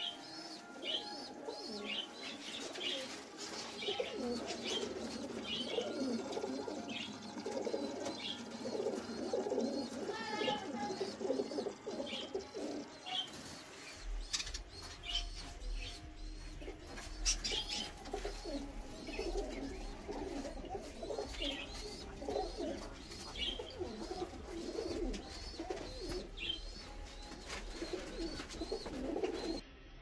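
A mixed chorus of caged birds: doves cooing under repeated short, high chirps from small birds. A low steady hum joins about halfway through.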